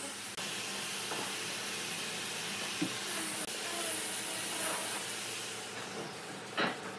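Gravity-feed compressed-air spray gun hissing steadily as it sprays finish, with a brief break right at the start and a short knock near the end.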